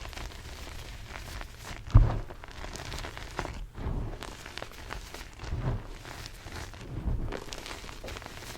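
Blocks of BSN gym chalk being crushed and crumbled by hand: a run of dry crunches and crumbly crackles, the loudest about two seconds in.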